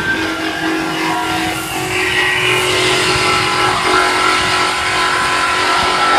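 DJ1250 CNC band sawing machine cutting through stacked steel sections: a loud, steady noise of blade and machine, with several held ringing tones above it.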